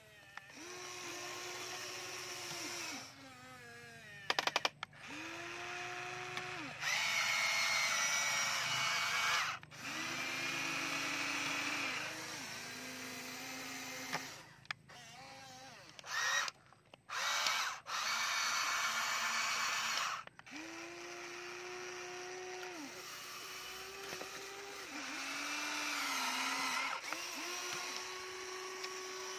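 Huina remote-control toy excavator's small electric motors whining in short runs of one to three seconds, each starting and stopping as a function is worked, at a pitch that changes from one movement to the next. A few sharp clicks come about four and a half seconds in.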